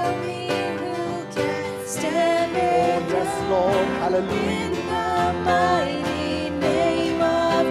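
Live worship chorus: voices singing a song of victory to acoustic guitar and keyboard.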